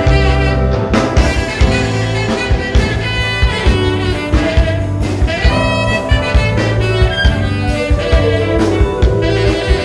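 Live band playing an instrumental break in a slow pop-soul song: a saxophone carries the melody over electric guitar, bass and a steady drum-kit beat.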